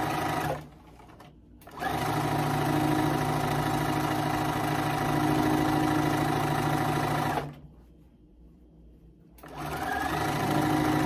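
Bernina electric sewing machine stitching fabric in stop-and-start runs: it stops about half a second in, runs steadily for about five and a half seconds, pauses about two seconds, then speeds up again near the end.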